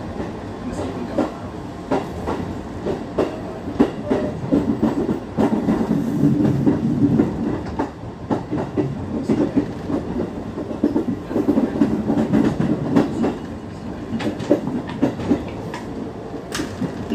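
Inside a JR 205-series electric commuter train pulling out of a station, with a steady running rumble and the wheels clicking sharply over rail joints and points.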